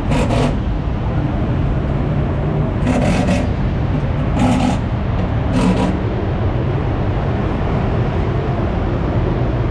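Racing engines running with a steady low rumble, broken by four short, louder bursts of noise.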